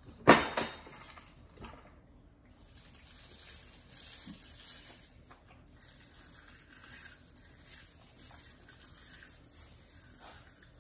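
A sharp clink of tableware, stainless steel tray or dish, about a third of a second in, fading quickly, followed by faint scattered small clatters and handling noises of toddlers picking at their food.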